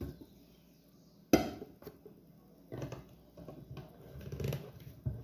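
Kitchenware being handled: one sharp clank a little over a second in, the loudest sound, then lighter clinks and knocks while the red plastic lid is screwed onto a thermos flask of fresh coffee.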